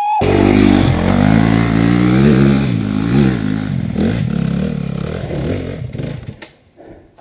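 Trail motorcycle engine running loud, its revs rising and falling for several seconds, then fading out near the end.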